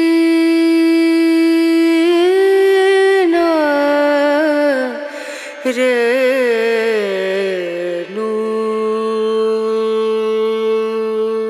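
Background music: a single voice-like melody of long held notes that slide and waver between pitches, ending on one long steady note.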